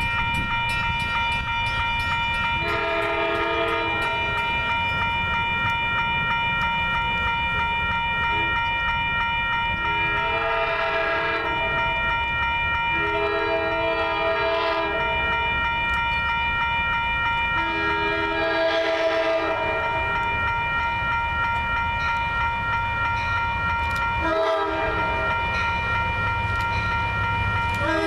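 EMD DE30AC diesel locomotive sounding its multi-note air horn as it approaches a grade crossing: several long blasts and one short one, with another long blast starting near the end. Under the horn run the low rumble of the approaching diesel and a steady high ringing tone from the crossing's warning bell, which stops about four seconds before the end.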